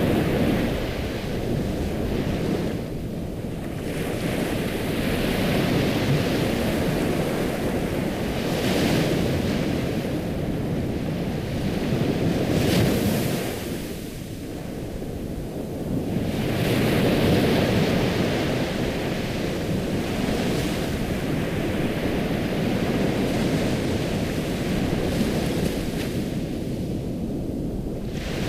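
Ocean surf: waves breaking and washing in, the rush of water swelling and easing again every few seconds.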